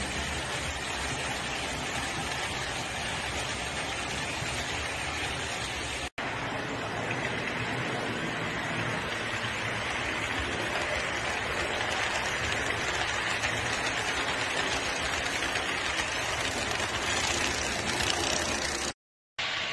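Model trains running on a layout's track: a steady rolling hiss of small wheels and motors. It breaks off briefly about six seconds in and again near the end.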